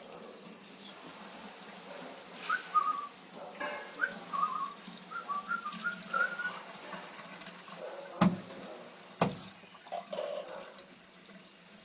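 Tap water running into a sink during a parrot's bath. A string of short, wavering whistled notes comes between about two and six seconds in, and two sharp knocks follow near the end.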